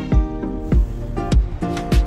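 Background music with a steady beat, a low thump roughly every half second under a melody of held notes.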